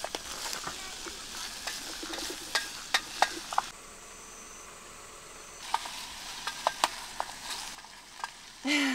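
Food sizzling in a pan, a steady hiss with scattered sharp pops and crackles; the hiss turns quieter and smoother for a couple of seconds around the middle.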